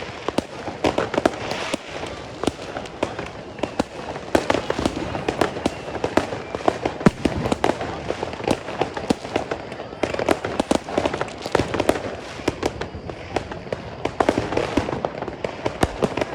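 Consumer fireworks going off in a dense, unbroken run of bangs and crackling pops, many overlapping each second.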